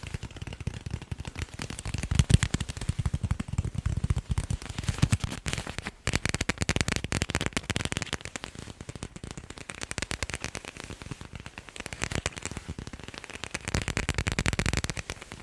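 Fast ASMR tapping on sports balls: a rapid, dense stream of taps. It shifts between deeper, fuller thuds and brighter, thinner clicks a few times.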